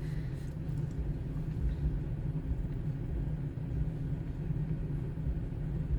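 A steady low rumble, with a faint steady hum above it.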